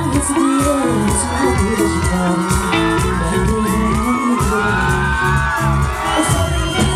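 Loud live band music played through the stage PA, with whoops and cheers from the crowd.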